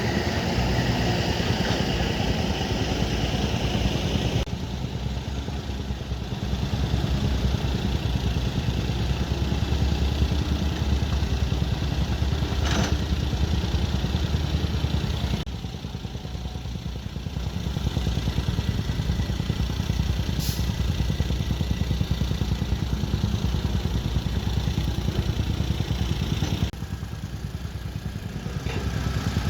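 Heavy earth-moving machinery, a bulldozer's engine, running steadily at working load. The sound drops in level abruptly a few times, then picks back up.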